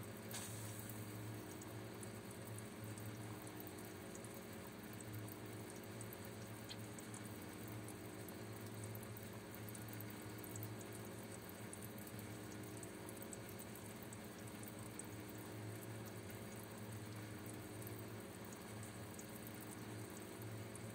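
Goldfish aquarium running: water bubbling and trickling continuously over a steady low hum from the tank's aeration equipment.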